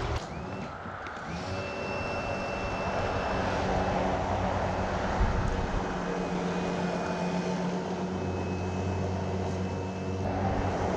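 An engine running steadily, with a thin high whine over it and a single knock about five seconds in.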